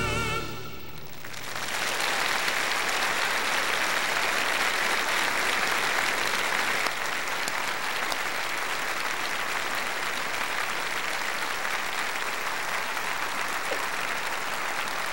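The last sung note and piano chord die away in the first second, then a large congregation claps steadily.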